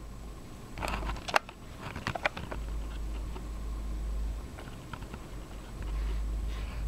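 Mechanical clicks of a Canon PowerShot S5 IS compact camera taking still pictures while it records video. There is a cluster of clicks about a second in, a second cluster about two seconds in and a few faint ticks later, over a low rumble.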